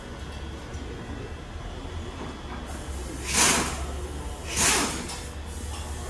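Two short hisses of a compressed-air blow gun, about a second apart, over a steady low hum.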